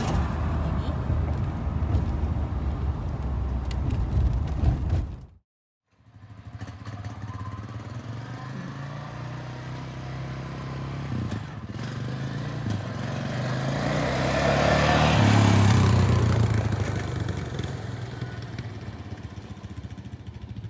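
Road noise inside a moving vehicle for the first few seconds, then a cut. After it, a pickup towing a fifth-wheel trailer and a quad ATV drive up a driveway past the microphone, their engine and tyre noise swelling to a peak about three-quarters of the way through and then fading.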